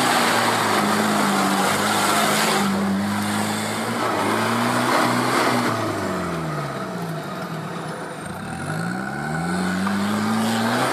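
Off-road 4x4 engine running steadily. About six seconds in, the revs drop for a couple of seconds, then climb back up.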